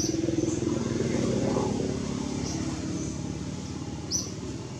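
A motor engine humming steadily, loudest in the first couple of seconds and then easing off, with a few short high chirps over it.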